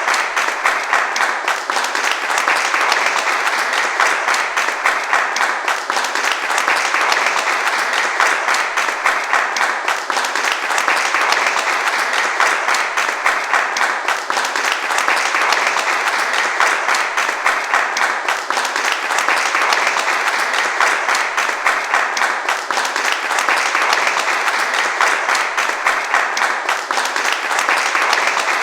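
Crowd applauding: dense, steady clapping that keeps going without a break, easing slightly about every four seconds.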